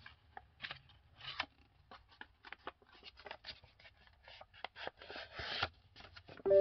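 A sheet of printer paper being handled and folded by hand: irregular crinkles, taps and short rustles, with a longer rub of paper about five seconds in. Music begins at the very end.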